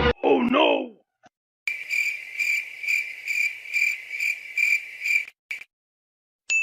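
Cricket chirping sound effect: a steady high chirp repeating about two and a half times a second for about three and a half seconds, the stock 'awkward silence' crickets used in vlogs. Before it, a short wobbling sound that bends up and down in pitch.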